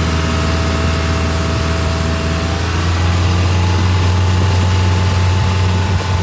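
Cummins QSB 6.7 inline-six turbo-diesel inboard running hard at speed, a steady deep drone with a thin high whine that climbs in pitch and gets slightly louder about three seconds in.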